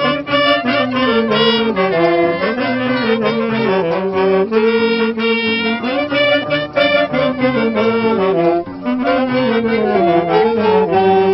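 Saxophones and a trumpet of an Andean orquesta playing a Christian praise tune together in harmony, the melody stepping up and down in steady phrases.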